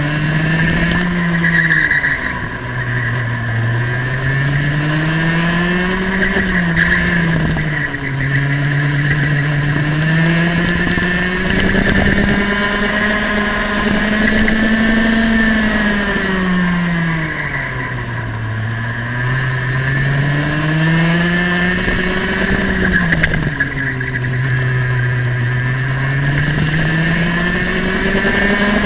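Small high-revving two-stroke kart engine at racing speed, recorded onboard. Its pitch climbs steadily on the straights and drops sharply off-throttle into corners, about four times, between roughly 8,000 and 13,000 rpm.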